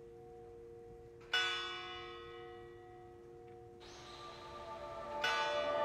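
A large hanging bell struck twice, about four seconds apart, each strike ringing out with many overtones and slowly fading. Music swells in under the second strike.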